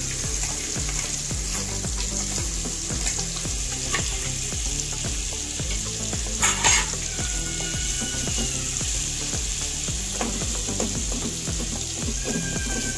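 Stuffed bitter gourds sizzling steadily as they shallow-fry in hot oil in a non-stick kadhai, with a spatula stirring through them near the end. A brief sharp clatter about six and a half seconds in.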